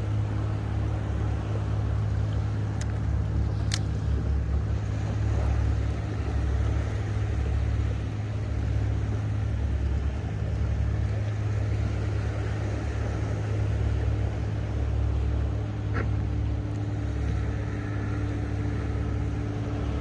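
A boat engine running steadily nearby, a low rumble with a constant hum. A couple of sharp clicks come about three and four seconds in.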